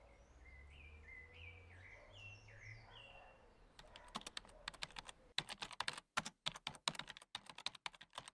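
Faint birds chirping for the first few seconds, then fast, irregular key clicks of typing on a laptop keyboard from about four seconds in.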